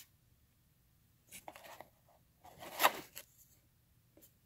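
Hands rustling and scraping cardboard packaging and a paper card in two short spells, the second louder, then a faint click near the end.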